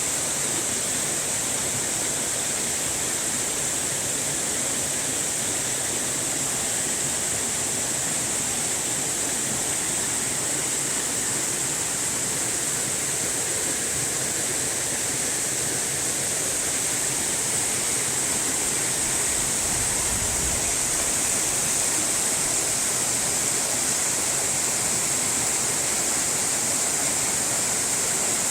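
Steady rushing water, like a waterfall or fast stream: an even, unbroken hiss with a bright high edge and no separate splashes.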